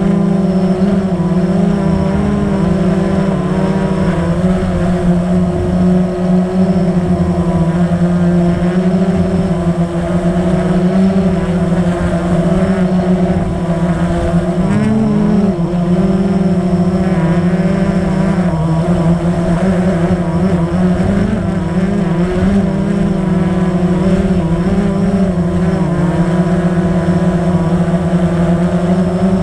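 Blade 350 QX quadcopter's brushless motors and propellers running in flight, a steady pitched hum heard close from the camera mounted on the drone. The pitch wavers slightly, with a brief dip and rise about halfway through.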